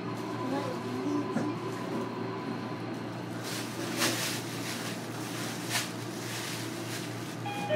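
Interior of a JR Kyushu 305 series electric train car: a steady low electrical hum from the car's equipment, with a few short bursts of hiss around the middle.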